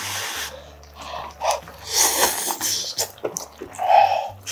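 A man slurping ramen noodles off chopsticks and chewing, with breathy huffs through the mouth. A short, loud open-mouthed huff comes about four seconds in.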